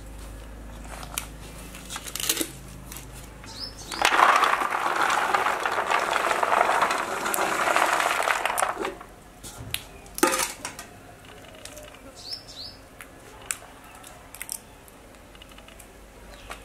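Dry in-shell peanuts poured onto a steel plate, a dense rattle lasting about five seconds, with scattered sharp cracks of peanut shells being broken open by hand before and after it.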